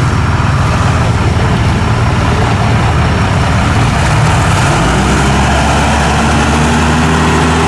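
Toyota V8 engine in a modified GAZ-63 truck running as the truck drives off-road. Its note changes about five seconds in.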